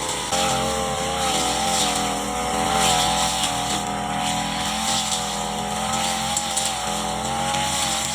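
Brush cutter engine running at high revs while cutting grass, its pitch stepping up about a third of a second in and then wavering slightly with the load.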